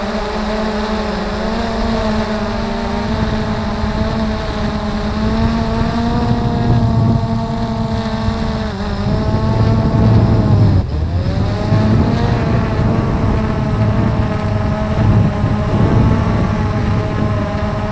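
Blade 350 QX2 quadcopter's electric motors and propellers whirring, heard from the camera mounted on the drone itself. The pitch shifts as the throttle changes, with a sharp dip and quick recovery near the middle as the drone comes down toward the grass.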